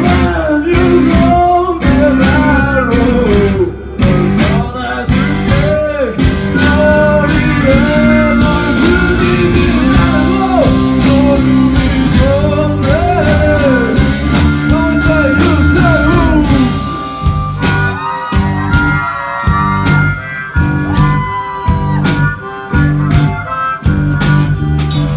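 Live blues-rock band: an amplified harmonica, cupped against a vocal microphone, plays bent, wavering notes over electric guitar, bass and drums.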